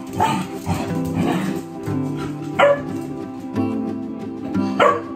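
Background music with sustained chords, over which a cocker spaniel puppy gives short, high yips that drop sharply in pitch, one about two and a half seconds in and another near the end.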